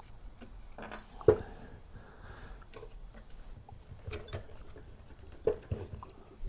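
Metal pull-chain lamp socket being handled and pressed together, with scattered light clicks and rattles and one sharper click a little over a second in as the shell snaps onto its cap.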